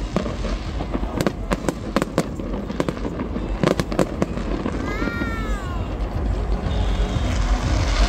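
Fireworks going off: a string of sharp bangs and crackles at uneven intervals, with a brief whistle that rises then falls about five seconds in.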